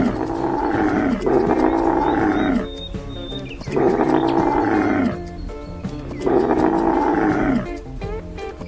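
An animal's drawn-out call, repeated four times, each about a second long with its pitch dropping at the end, over background music.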